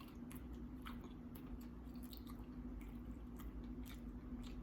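Wet chewing and small scattered mouth clicks of a person eating seafood nachos close to the microphone, over a faint steady hum.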